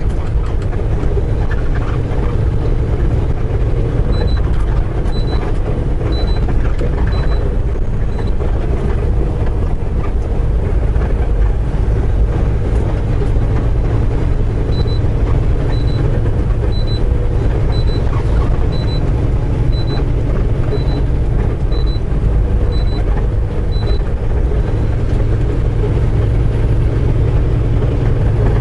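Steady engine and road noise inside a semi-truck cab while driving, with a short high electronic beep about once a second in two runs, one a few seconds in and a longer one through the middle. The beeping is typical of the truck's following-distance alert.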